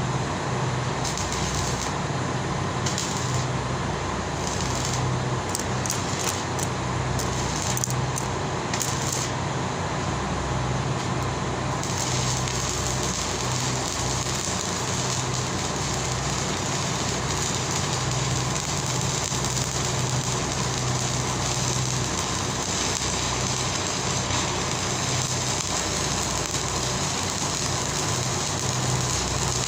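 Steady machine noise: a low hum that pulses slightly under a broad hiss, and the hiss turns brighter about twelve seconds in.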